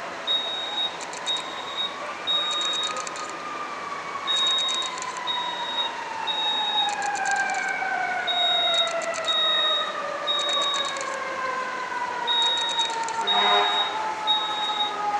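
Building fire alarm sounding a high beep in repeating groups of three with a pause between groups: the temporal-three evacuation pattern. Under it, a fire truck siren slowly winds down in pitch.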